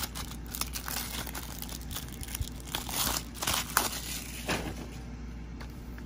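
Plastic shrink wrap being torn and peeled off a Blu-ray case, crinkling in irregular bursts that are loudest in the middle.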